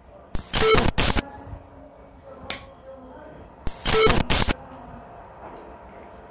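A short sound effect for an on-screen thumbs-up 'like' button, added in editing, plays twice about three and a half seconds apart, each time as the same loud burst.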